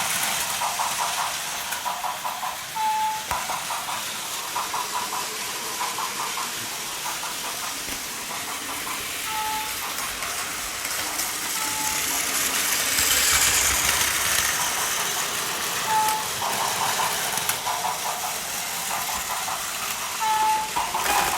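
Plarail toy trains running on plastic track: a steady whirr of small battery motors and wheels. Several short, high electronic beeps come at intervals of a few seconds, over patches of quick clicking.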